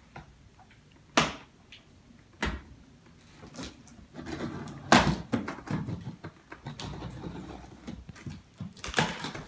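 Cardboard box being opened by hand: a few sharp knocks and taps on the box, then a stretch of scraping and rustling from about four seconds in as the packing tape on top is slit with a knife and the flaps are handled.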